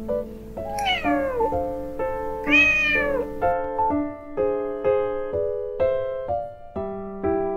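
A cat meows twice over piano music: the first call falls in pitch, the second rises and then falls.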